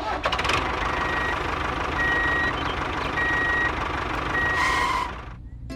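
Vehicle reversing alarm beeping four times, about once every 1.2 seconds, each beep a steady single tone, over steady engine noise that stops near the end.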